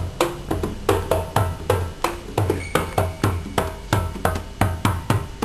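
Percussive music with a steady beat: quick, evenly spaced struck notes, about three a second, ringing briefly at changing pitches over a pulsing low bass.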